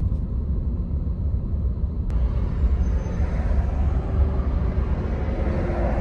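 Steady low rumble of a vehicle rolling slowly in a queue, heard from inside its cabin, with a single sharp click about two seconds in.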